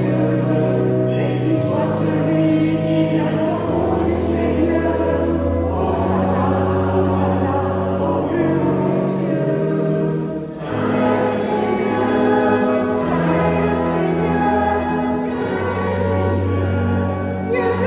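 Congregation singing a hymn to church organ accompaniment, the organ holding long sustained chords under the voices. The singing breaks briefly between phrases about ten and a half seconds in.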